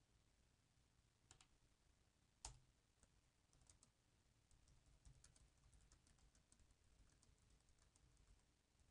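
Faint typing on a computer keyboard: a quick run of soft key clicks through the second half, after a couple of single clicks.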